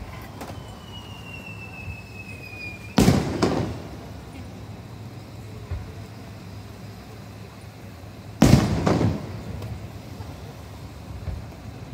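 Aerial firework shells bursting in the distance: a loud bang with an echoing tail about three seconds in, another loud bang about eight seconds in, and fainter pops between. Before the first bang, a thin whistle slides slowly down in pitch for about two seconds.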